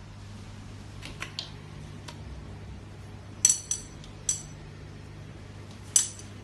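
A handful of sharp clinks and taps as a telescopic rod and its small hard fittings are handled and knocked against a tiled floor. They are loudest in a quick cluster about three and a half seconds in and once more near the end, over a steady low hum.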